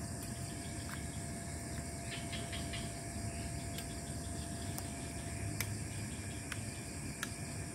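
Steady low rumble and high hiss of a night-time outdoor background, with a short rattle about two seconds in and a few light clicks as small camping gear is handled and set down on the ground.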